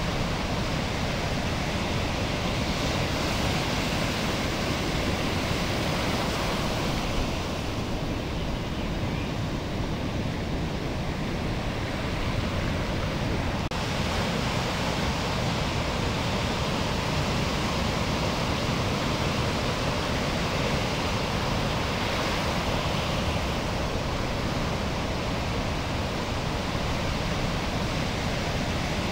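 Steady rushing noise of ocean surf and water washing close by at water level.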